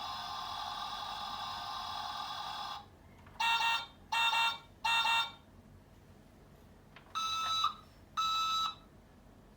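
Electronic beeping. A steady electronic tone cuts off about three seconds in, then come three short beeps in quick succession and two longer beeps near the end.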